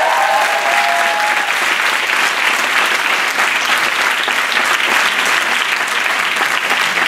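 Audience clapping steadily, with a few high whoops and cheers in the first second or so.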